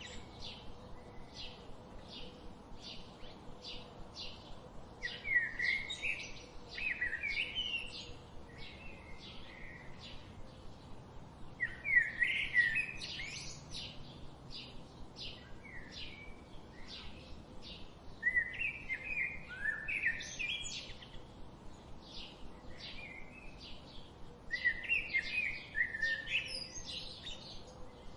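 Birds singing: a steady run of short, high chirps, about two to three a second, with louder warbling song phrases breaking in four times, roughly every six seconds.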